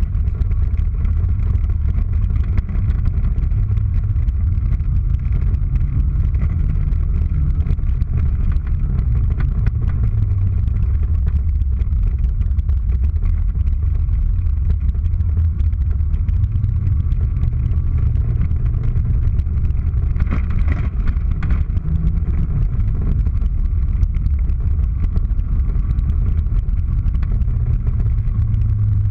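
Racing car's engine heard from inside the cabin, driven hard on an ice track, its revs stepping up and down through the corners and gear changes.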